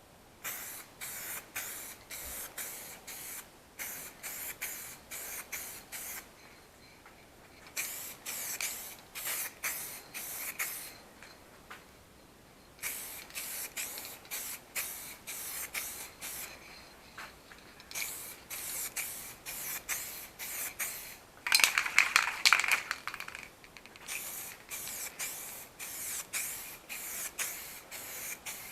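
Aerosol rattle can of base-coat car paint spraying in many short bursts of hiss, in several runs with pauses between, as a light coat goes on. One longer, louder burst comes about three-quarters of the way through.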